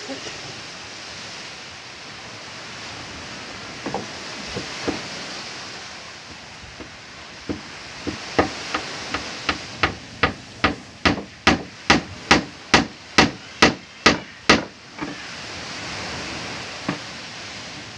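Claw hammer striking the wooden planking of a boat hull: a few scattered blows, then from about eight seconds in a quick, even run of about twenty sharp strikes, roughly three a second, that stops suddenly.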